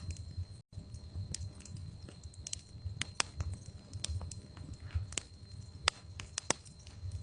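Log fire crackling in a fireplace: a low steady rumble of the flames with irregular sharp pops and snaps every half second or so. The sound cuts out completely for a moment near the start.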